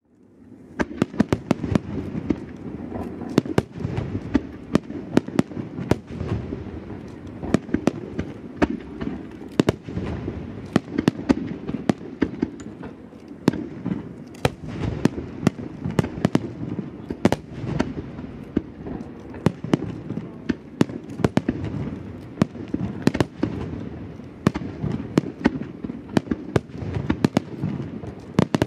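Aerial firework shells bursting in a large display: dozens of sharp bangs in quick, irregular succession over a continuous rumble.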